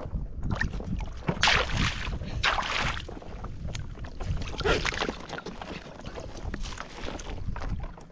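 Water sloshing and splashing around a small boat at sea, with wind rumbling on the microphone; a few louder splashes come between about one and a half and three seconds in.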